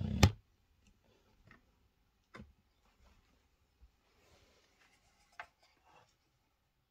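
Clicks and light knocks from handling a ceiling fan's wiring and terminal block: one sharp click at the start, then a few faint taps.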